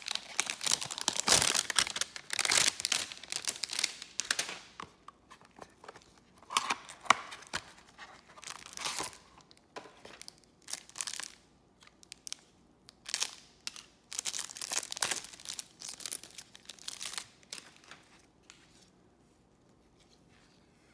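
Plastic wrapper of a trading-card pack being torn open and crinkled, a dense run of crackling for the first four seconds or so, then separate rustles and crinkles as the cards are worked out of it, dying away a few seconds before the end.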